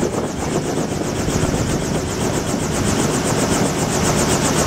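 Small helicopter running on the ground with its rotor turning: a steady engine hum under a fast, even chop.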